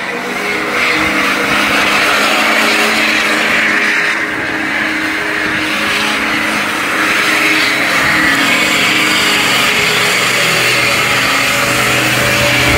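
Lifted Chevrolet pickup doing a burnout in circles: the engine is held at high revs while the rear tires spin and squeal on the asphalt, a steady, loud rush.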